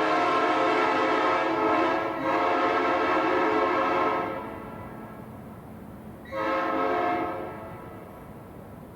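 3D-printed replica of a Nathan Airchime P5 five-chime train horn sounding its chord, an A major 6th set by a custom 370 Hz #3 bell, a little out of tune with the #4 bell sharp and the #5 bell flat. A long blast cuts off about four seconds in, with a brief dip about two seconds in; a short blast of about a second follows.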